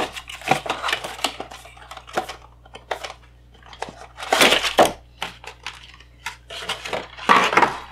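Clear plastic packaging and a small vinyl figure handled on a tabletop: scattered light clicks and taps, with two short crinkling rustles, about four and a half and seven and a half seconds in.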